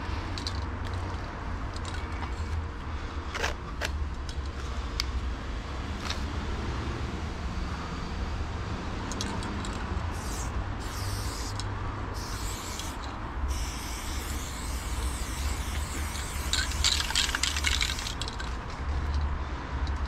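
Loop Colors aerosol spray paint can hissing against a wall: several short bursts about halfway through, then a longer, louder pass. A steady low rumble runs underneath, with a few sharp clicks early on.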